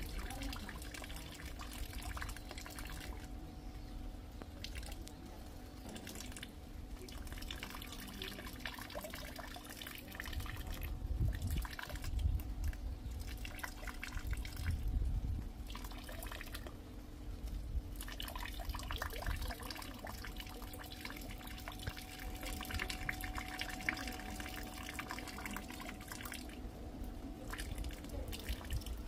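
Rain dripping: water drops falling in quick, irregular ticks over a steady wash of trickling rainwater. A low rumble swells a few times in the middle.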